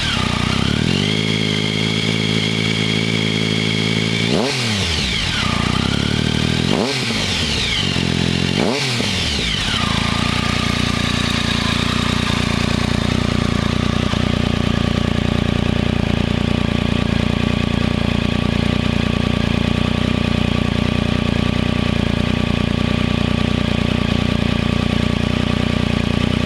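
Triumph Tiger 1050's inline three-cylinder engine through an Arrow race slip-on exhaust. It is held at raised revs for a few seconds and blipped several times, each rev falling back quickly, then settles into a steady idle for the rest of the time.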